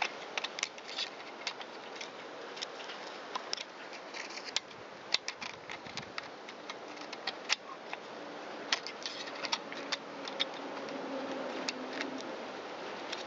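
Scattered light metallic clicks and taps over a faint hiss, from a screwdriver and parts being handled around a chainsaw's clutch and oil-pump drive.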